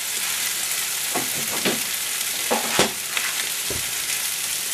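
Rice, tomato and seafood for paella frying in a frying pan: a steady sizzle, with a few short scrapes of a wooden spatula in the pan.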